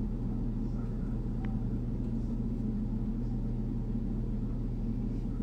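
Steady low background hum with a faint click about one and a half seconds in.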